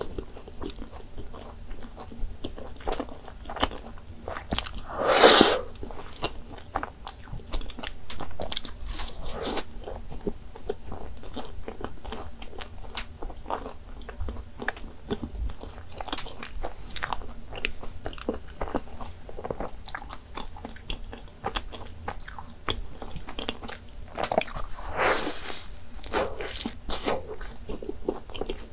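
Close-miked eating of a custard-filled fried donut: biting and chewing with many soft, wet mouth clicks. The loudest sound comes about five seconds in, and there is a denser run of louder bites near the end.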